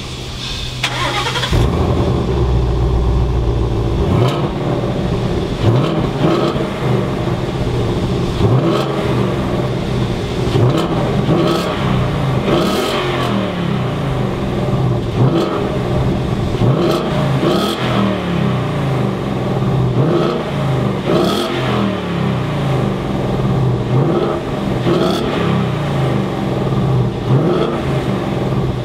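Ford Mustang GT's 5.0 V8 running through a Cobra Sport H-pipe in place of the resonator, flaring about a second in and then given repeated quick revs from idle. The exhaust note is more throaty and V8-like with the resonator gone.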